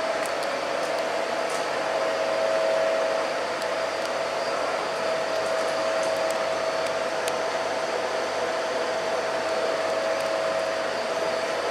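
Steady mechanical whirring, like a running fan or blower, with a constant mid-pitched tone that holds unchanged throughout.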